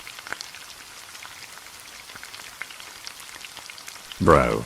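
Steady light rain pattering, a faint hiss with scattered small drips and ticks. A voice begins to speak near the end.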